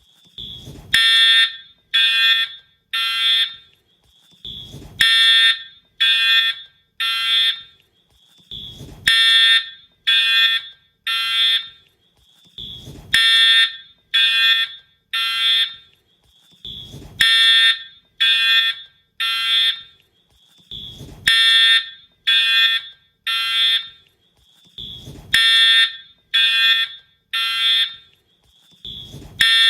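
Wheelock-style fire alarm horn sounding three harsh blasts followed by a pause, repeating about every four seconds: the temporal-three evacuation pattern. A low thump comes just before each group of three blasts.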